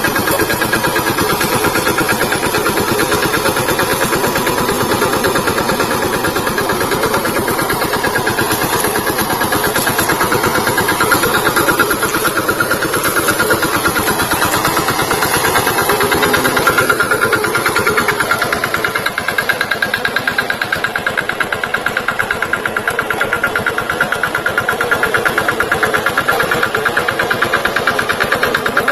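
VST Shakti tractor's diesel engine running steadily with a fast, even firing beat, easing off slightly about two-thirds of the way through.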